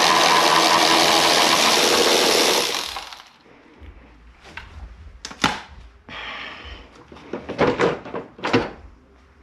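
Cordless power tool spinning with a steady whine as it drives a bolt, stopping about three seconds in. After it, a few scattered clicks and knocks of tools and parts being handled.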